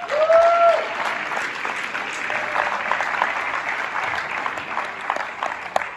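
Audience in a large hall applauding, many hands clapping steadily and dying down near the end. A single voice calls out briefly at the start.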